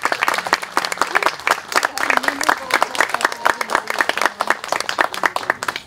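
Audience applauding, many hands clapping together, the clapping dying away at the end.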